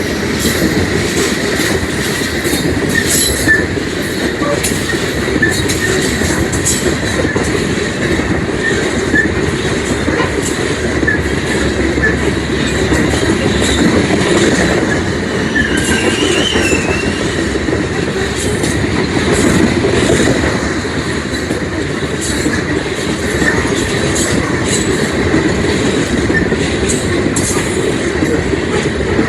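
Loaded coal train cars rolling past at steady speed: a continuous rumble of steel wheels on rail with frequent clicks over rail joints, a faint steady wheel squeal, and a brief wavering squeal about halfway through.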